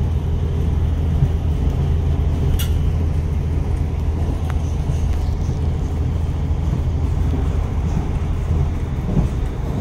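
Steady low rumble of a moving vehicle heard from inside, with one sharp click about two and a half seconds in.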